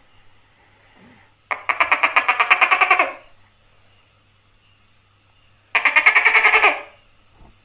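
Tokay gecko calling: two rapid, rattling trills, the first about a second and a half long, the second shorter a few seconds later.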